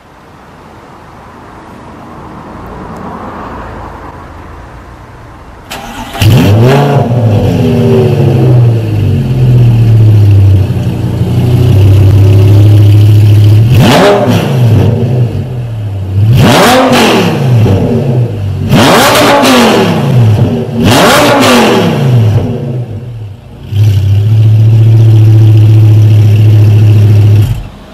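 Lamborghini Gallardo LP560-4's 5.2-litre V10 through an Armytrix aftermarket exhaust, started about six seconds in with a loud flare, then held at a steady fast idle broken by four sharp throttle blips. It dips briefly, settles back to idle and drops off sharply near the end.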